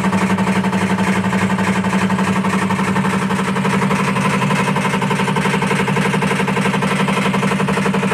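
IFB top-load washing machine running empty with a loud, steady hum and a fast, even throb. The owner presents it as a noise fault, since it is this loud even with no clothes in the drum.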